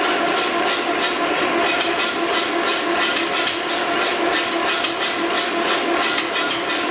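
Power hammer forging a red-hot steel bar with a fast, steady run of blows, several a second.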